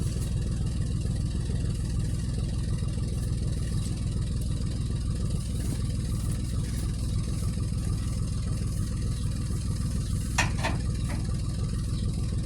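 Vehicle engine idling steadily, with three short sharp sounds about ten seconds in.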